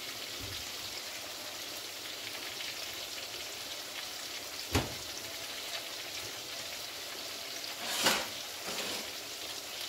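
Steady sizzling of nuggets deep-frying in a pan of oil. A sharp tap comes a little under five seconds in, and a louder knock about eight seconds in.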